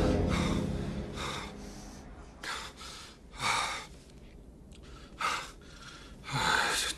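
A man breathing heavily in sharp gasps, about five breaths with short pauses between them, while a louder sound dies away over the first two seconds.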